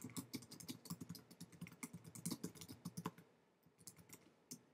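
Typing on a computer keyboard: a quick, steady run of key clicks, breaking off for about a second near the end before a few more keystrokes.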